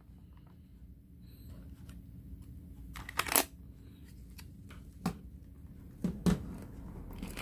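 Plastic clicks and knocks from a laptop battery pack being unlatched and taken out: a double click about three seconds in, then single knocks about five and six seconds in.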